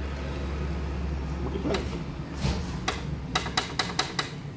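Aluminium-framed sliding glass door being handled: a couple of knocks, then a quick run of about five sharp clicks from its latch being worked. A steady low rumble underneath stops about halfway through.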